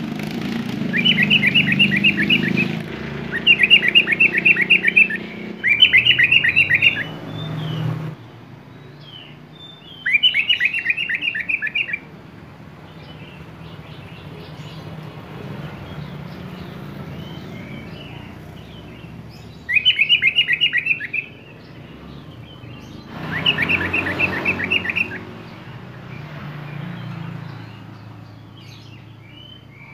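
Sooty-headed bulbul (kutilang) singing: six bursts of rapid, evenly repeated notes, each lasting one to two seconds, separated by pauses with fainter scattered calls.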